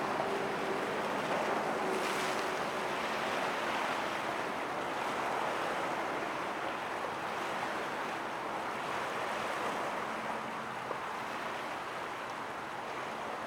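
Steady rushing noise of wind and water at the harbour shore, with a faint hum that fades out about two seconds in.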